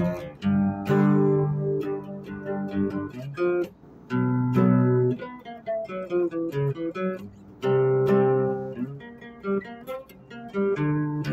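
Music: chords strummed on a plucked string instrument, changing every second or two.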